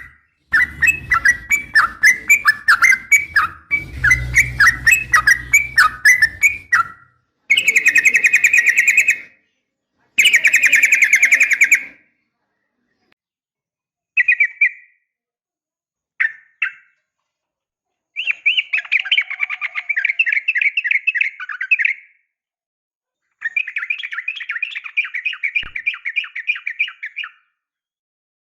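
Yellow-vented bulbul (trucukan) calls: quick repeated chirping for about seven seconds, over a low rumble. Then come fast rattling trills in bursts of two to four seconds, with a couple of short single calls between them.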